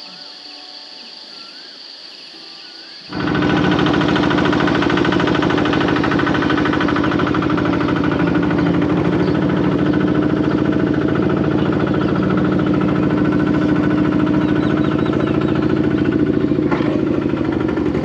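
A vehicle engine running steadily with an even, rapid firing pulse. It cuts in loudly and abruptly about three seconds in, after quieter outdoor ambience.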